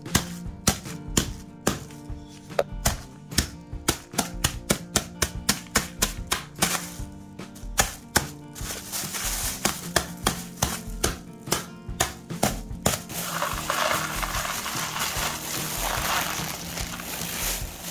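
Dry instant ramen noodles being crushed by hand in a plastic bag: a rapid run of sharp cracking snaps for about the first half, then a continuous crinkling rustle of the bag.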